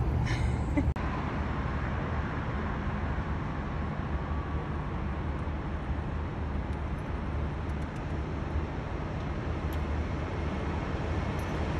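Steady low rumble of road traffic and running vehicles, with a few faint light clicks in the second half.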